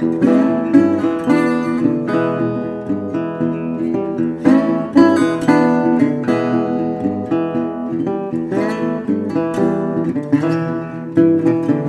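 Intro music played on acoustic guitar, with plucked and strummed notes at a lively pace.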